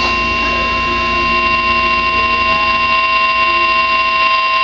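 NOAA Weather Radio warning alarm tone, a steady loud single tone near 1050 Hz, sounding from a weather alert radio's speaker. It signals that a warning broadcast, here a severe thunderstorm warning, is about to follow.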